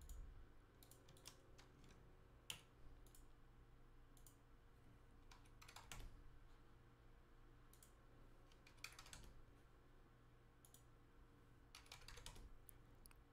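Faint computer mouse clicks and keyboard keystrokes, scattered singly and in small clusters with pauses between.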